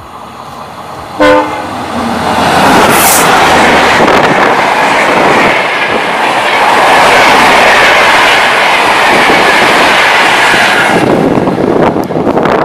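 A short, loud horn blast from a WDP4 diesel locomotive about a second in, then the loud rush of the locomotive and its passenger coaches passing at speed, around 130 km/h, for about nine seconds. The noise drops off sharply near the end.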